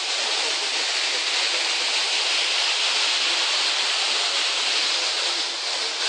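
Dudhsagar waterfall's steady rush of falling water: an even, unbroken hiss.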